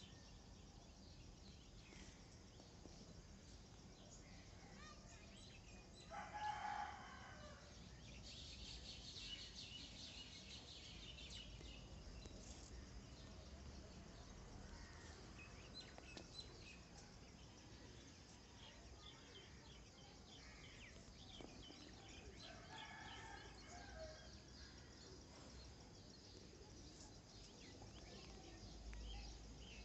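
Quiet outdoor background with a rooster crowing twice, about six seconds in and again around twenty-two seconds, each crow lasting about a second. Small birds chirp faintly in between.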